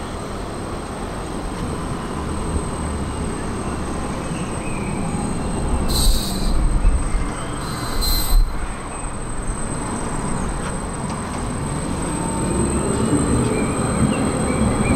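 Articulated tram rolling slowly along street track with a steady rumble that grows louder near the end. Two brief high-pitched wheel squeals come about six and eight seconds in.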